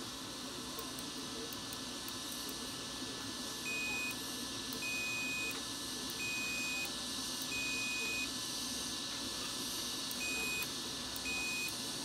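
Digital multimeter's continuity buzzer beeping six times in short, uneven beeps as its probes on the micro switch terminals show a closed contact.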